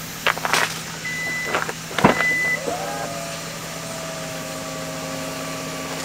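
A few sharp clicks and two short high electronic beeps, then a small electric motor starting up with a rising whir about halfway through and running steadily.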